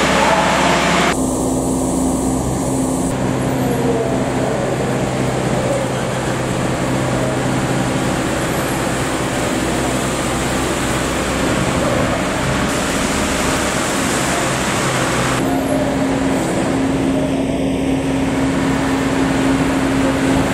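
Slow vehicle traffic: car and truck engines running as vehicles drive slowly past, over a steady low hum. The sound changes abruptly a few times.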